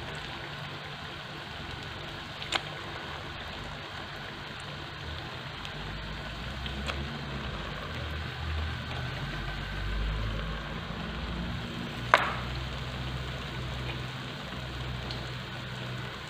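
Hot oil sizzling steadily as piped zlabia pastries deep-fry in a pan. Two sharp clicks of metal tongs sound, one about two and a half seconds in and a louder one about twelve seconds in, and a low rumble swells through the middle.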